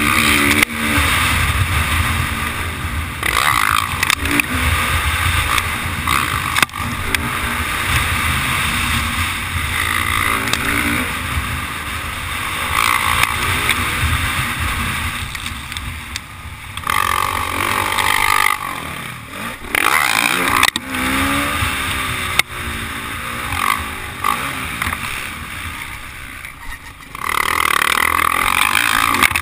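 Motocross dirt bike engine revving up and down as it rides a dirt track, heard close up from the bike itself. It climbs to louder, higher revs twice, about halfway through and again near the end.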